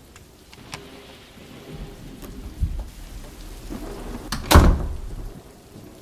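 Steady rain with a roll of thunder that builds from a low rumble to a loud crack about four and a half seconds in, then fades.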